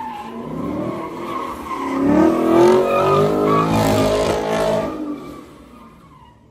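A car engine revving hard while the car's tyres spin and slide on wet pavement. The engine note climbs and drops, is loudest in the middle, and dies away about five seconds in.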